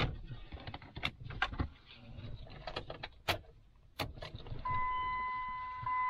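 A string of sharp clicks and knocks, like parts being handled in a car, then a steady electronic tone that comes on near the end and holds.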